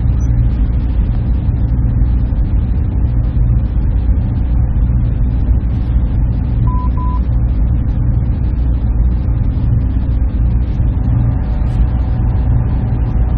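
Steady low drone of the machines in a server room, with two short beeps in quick succession about halfway through.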